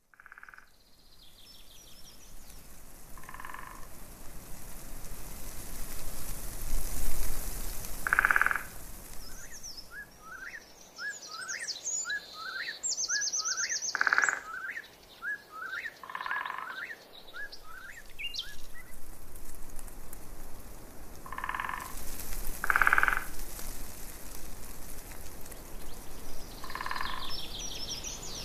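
Frogs croaking in short calls every few seconds, with a bird giving a quick run of rising chirps and a high trill in the middle, over a steady outdoor hiss.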